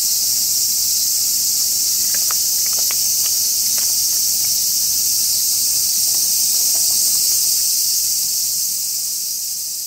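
A dense, steady chorus of cicadas, a continuous high shrill sizzle, with a few faint crunchy clicks of cats chewing dry kibble a couple of seconds in. The sound fades away near the end.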